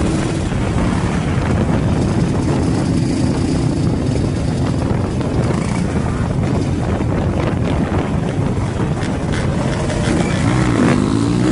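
Dirt bike engine running hard and steady as the bike rides along, then revving up with a rising pitch in the last second or so.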